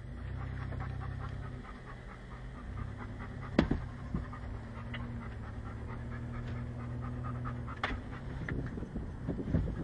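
Car engine running at low speed, heard from inside the car as a steady low hum, with two sharp knocks about four seconds apart.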